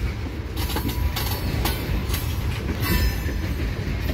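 Freight train of tank cars and boxcars rolling past: a steady low rumble with irregular clacks of wheels over rail joints, and a brief wheel squeal about three seconds in.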